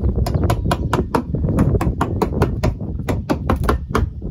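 Wide metal scraper blade striking and scraping rotten, water-soaked plywood decking in quick repeated strokes, about four or five a second.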